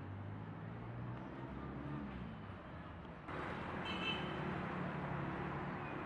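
Outdoor background noise with a low motor-vehicle engine hum that rises and falls in pitch. About three seconds in, the sound changes abruptly to a louder, brighter hiss of open-air background noise, with a brief high chirp a second later.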